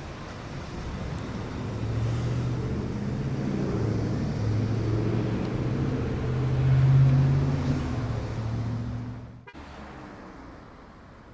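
Street traffic: a motor vehicle drives past, its engine note growing louder to a peak about seven seconds in and then fading. The sound breaks off sharply near the end, leaving a quieter traffic hum.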